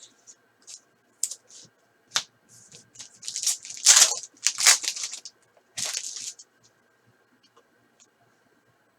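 A foil trading-card pack being torn open, with several short rasping rips and crinkles of the wrapper, loudest from about three to six and a half seconds in, after a few light taps and clicks.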